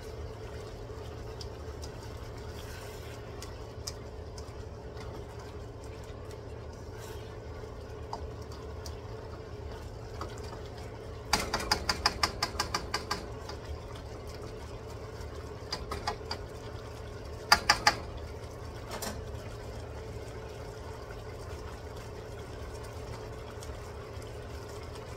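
Squid and green beans simmering and sizzling in a wok in their own released juices, over a steady low hum. A spatula scrapes and taps against the wok in quick runs of clicks, the longest about halfway through, then two short runs a few seconds later.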